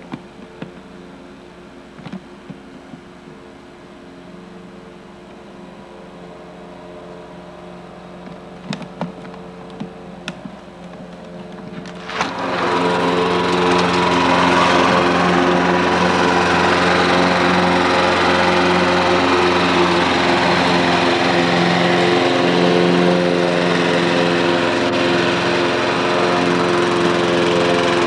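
Walk-behind power lawn mower running steadily while being pushed across a lawn. It becomes abruptly much louder about twelve seconds in and stays loud.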